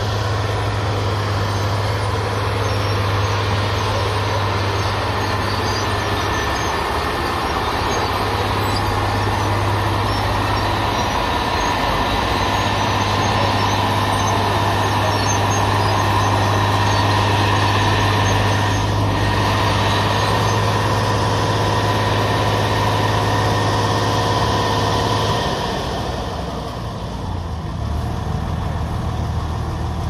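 Engine of a heavy track-laying machine running steadily under load, with a deep hum and a fainter whine above it. Near the end the engine note drops and it quietens a little.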